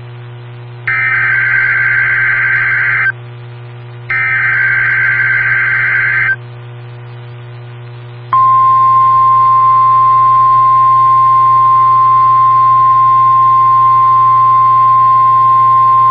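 NOAA Weather Radio SAME alert header: two buzzy, warbling digital data bursts of about two seconds each, a second apart. About eight seconds in, the steady single-pitch 1050 Hz warning alarm tone begins; together they signal an incoming severe weather alert. A low steady hum runs underneath.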